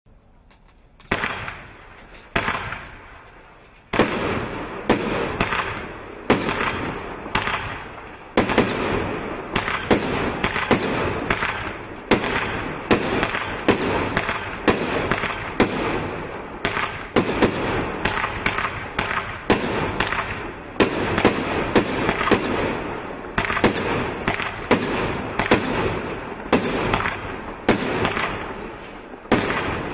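Europlá SFC3622 'Hong Kong Night' firework cake firing. A lone shot comes about a second in and another a little later. From about four seconds the shots follow in a steady rapid run, about two a second, with continuous noise between the strikes.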